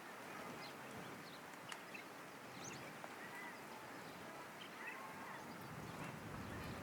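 Faint outdoor ambience with scattered small bird chirps and a few short, curving bird calls.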